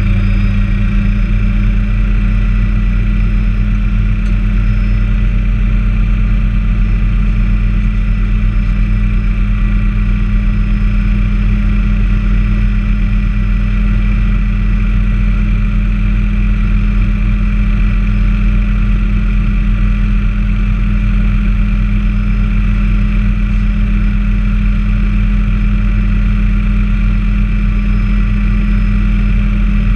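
Bell 206A helicopter's Allison 250 turboshaft engine and rotor running steadily on the ground, heard inside the cabin: a loud, even low drone with a thin, steady whine above it.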